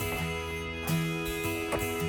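Background music with a plucked guitar.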